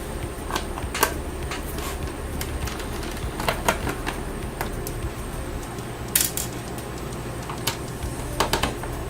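Irregular light clicks and taps of a precision screwdriver and small screws being handled, as the bottom-case screws of a laptop are taken out; the sharpest click comes about six seconds in, over a faint steady low hum.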